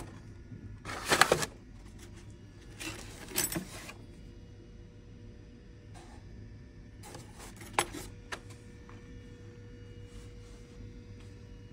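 Cardboard boxes of steel knife blades being shifted and rummaged through: a few short bursts of scraping and rustling, the loudest about a second in, with metal clinking and one sharp clink a little after halfway, over a steady low hum.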